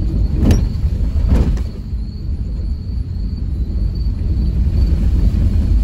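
Steady low rumble of a car driving slowly over a rough, wet causeway, heard from inside the cabin, with two short thuds from bumps about half a second and a second and a half in.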